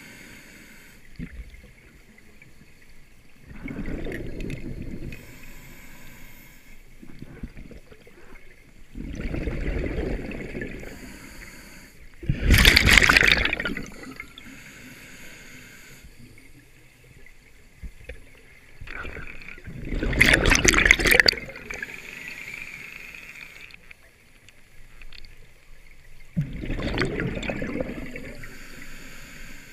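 Scuba diver breathing through a regulator underwater: exhaled bubbles rushing out in bursts every several seconds, about four breaths in all, with the loudest bubble bursts about thirteen and twenty-one seconds in.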